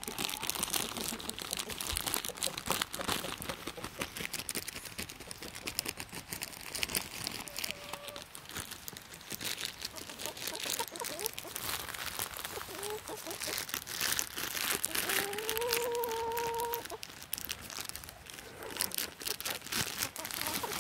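Plastic marshmallow bag crinkling and rustling in a hand, mixed with footsteps crunching through dry leaves. About three-quarters of the way through, a chicken gives one drawn-out call lasting about two seconds.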